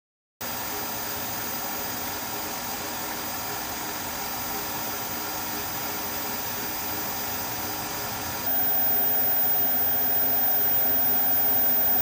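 Steady static hiss with a faint hum of steady tones underneath, stepping up louder about eight and a half seconds in.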